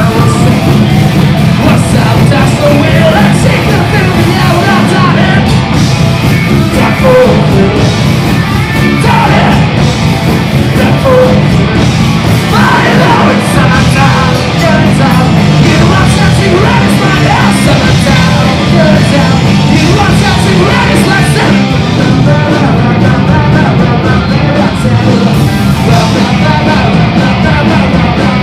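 A rock band playing live and loud: electric guitar and bass guitar with a singer shouting and singing into a microphone.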